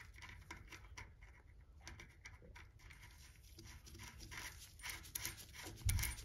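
Faint clicks and light scraping of small metal parts being handled as a serrated locknut is fitted onto a bicycle front hub axle, with a low thump near the end.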